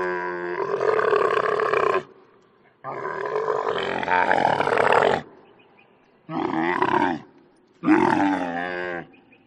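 A camel calling in four long, low-pitched calls: the first two last about two seconds each, the last two about a second each.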